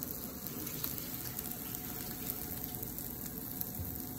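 Tuna croquettes frying gently in a little olive oil in a nonstick skillet: a steady, soft sizzle without much popping, with a faint steady hum underneath.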